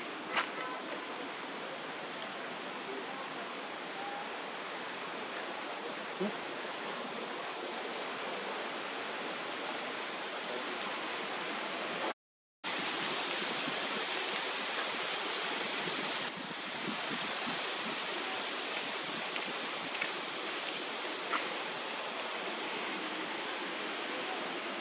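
Steady outdoor background hiss with a few faint clicks. About halfway it cuts to silence for half a second, then comes back a little louder and brighter.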